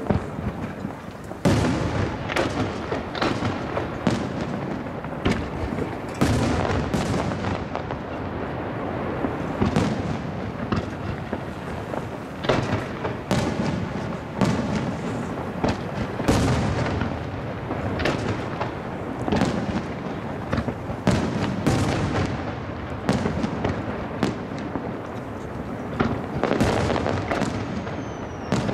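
Aerial firework shells bursting in quick succession, a dense run of booms and crackles that echo off the surrounding hills. A short falling whistle comes near the end.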